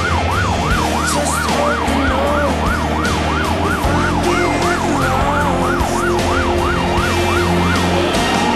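Fire engine's siren in a fast yelp, about three up-and-down sweeps a second, switching near the end to a slow rising wail. The truck's engine runs steadily underneath, heard from inside the cab.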